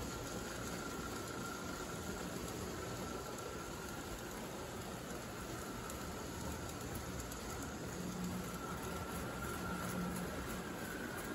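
O gauge toy trains pulling tin tank cars along three-rail track: a steady rolling rumble of metal wheels on the rails, with a faint steady whine.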